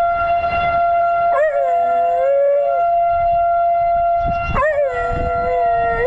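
Tornado warning siren holding one steady tone, with a small dog howling along to it twice; each howl opens with a quaver and is then held for over a second.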